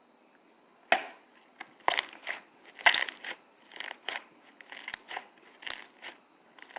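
Slime being squeezed and stretched by hand, giving a string of irregular sharp clicks and pops that start about a second in.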